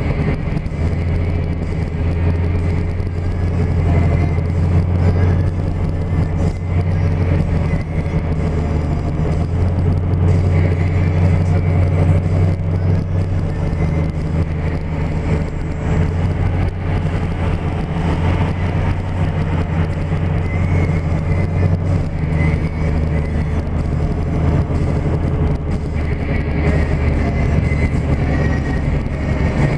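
Steady low rumble of a car's engine and tyres on the road, heard from inside the cabin while cruising at a constant speed.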